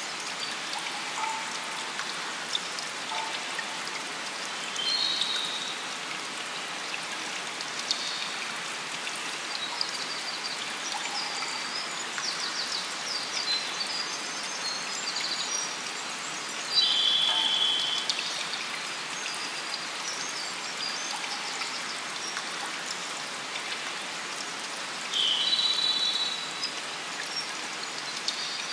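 Steady rain and dripping water, with short, high bird calls and trills now and then.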